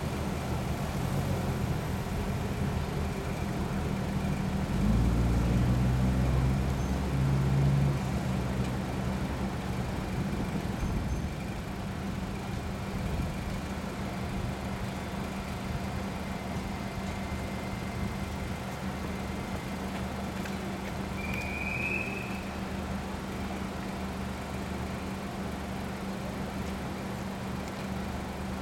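Motor vehicle engines running steadily, with a steady low hum throughout. One vehicle grows louder and rumbles past between about 5 and 11 seconds in. A brief high beep sounds about 22 seconds in.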